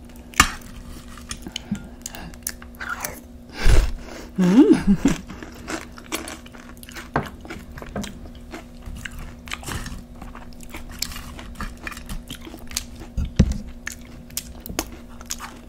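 Close-miked crunchy biting and chewing of nacho tortilla chips: many short sharp crackles, loudest about four seconds in.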